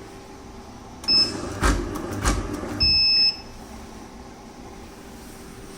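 Automatic tape cutting machine starting a run: a short electronic beep, then a mechanical whir with two sharp knocks as the cutter blade chops two pieces of tape, then a longer beep after the second cut. A faint steady hum from the machine follows.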